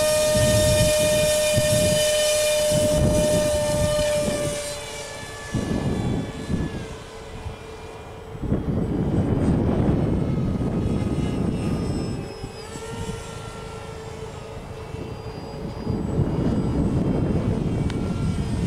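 RC model jet's pusher-propeller motor whining steadily at full throttle. About five seconds in, its pitch drops and it grows fainter as the plane flies off, then rises and falls with throttle changes. Low rumbling gusts of noise come and go throughout.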